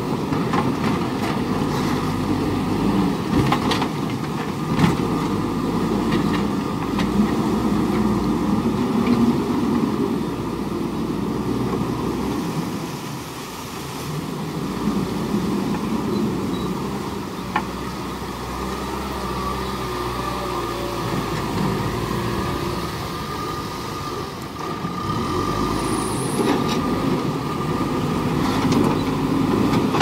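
JCB backhoe loader's diesel engine running under load as the machine works, its level rising and falling, with a few sharp knocks.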